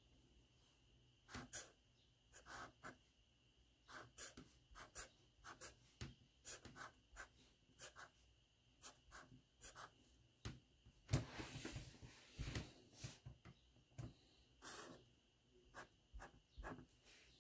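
Sharpie permanent marker scratching across paper in short, separate strokes, faint overall, with a longer, louder stretch about eleven seconds in.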